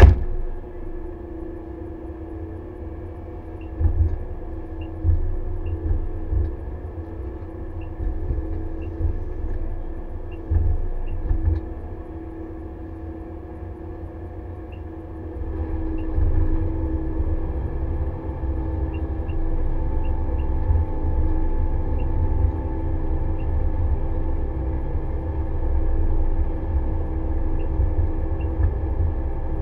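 Engine and machinery of a Pellenc Optimum self-propelled grape harvester running, heard from inside its cab: a steady drone with a strong low rumble and a few low thuds in the first half. A sharp knock comes right at the beginning, and about halfway through the drone grows louder and fuller as the machine works in the vine row.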